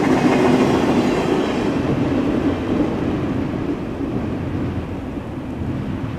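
The last flatcars of a freight train rolling past, a steady rumble of wheels on rail that fades as the train moves away.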